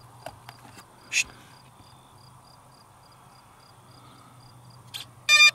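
Small clicks of a battery connector being handled, with crickets chirping steadily in the background; near the end a loud electronic beep sounds from the RC plane's speed controller through its electric motor, the power-up tone that shows the battery is connected.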